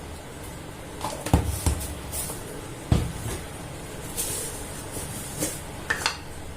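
Kitchen handling sounds: several sharp knocks and clatters of containers, lids and a spoon, with a brief rustling hiss about two-thirds of the way through.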